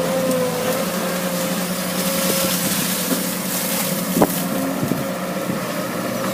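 Caterpillar digging machine's engine running steadily, with a constant high whine over it. A single sharp knock about four seconds in.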